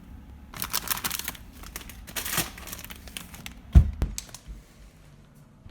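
Spells of crinkling, rustling noise, then a single heavy thump a little under four seconds in, followed by a few sharp clicks.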